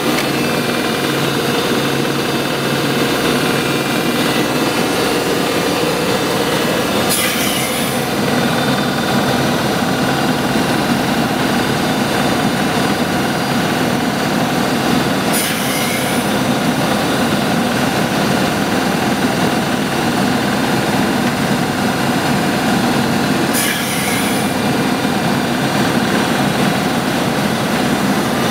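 Heavy industrial machinery running steadily and loudly, with a short hiss repeating about every eight seconds.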